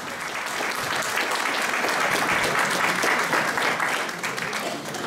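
Audience applauding: many hands clapping densely and steadily, swelling a little about two seconds in.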